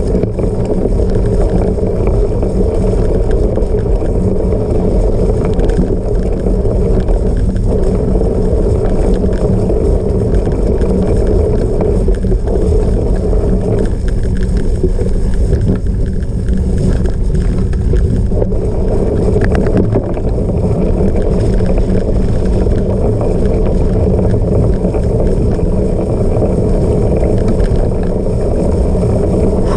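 Steady, loud rumble of a cyclocross bike in motion: wind on the microphone mixed with tyre and frame noise over rough ground.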